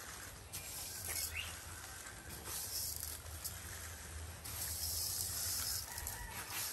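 Soft rustling and crinkling of young coconut-leaf strips being threaded and pulled tight while weaving a puso, over rural outdoor background with a steady low hum and a short bird chirp about a second in.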